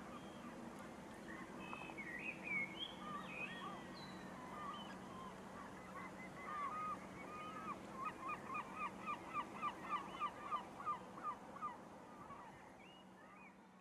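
Waterfowl calling with short honking notes. The calls are scattered at first, then come in a quick regular run of about three a second in the second half before fading out.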